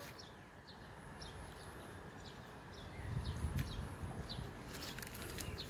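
Birds chirping: a run of short, high, falling chirps about every half second, with a low rumble from about three seconds in.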